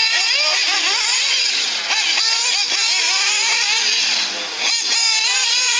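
High-pitched nitro engines of radio-controlled racing buggies revving up and down as they race, with the pitch rising and falling and overlapping.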